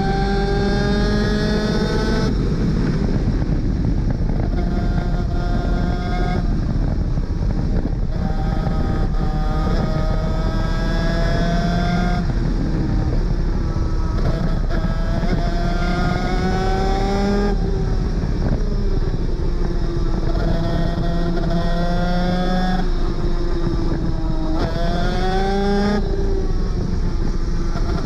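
Superkart 250's two-stroke engine at racing speed, heard onboard. Its pitch climbs through each gear and breaks at every shift, rising and falling every few seconds as the kart shifts up and down through corners and straights.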